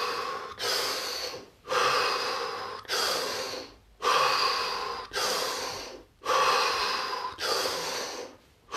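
A man taking slow, deep breaths close to the microphone, inhales and exhales alternating about once a second, with short pauses between; some exhales are blown out through pursed lips.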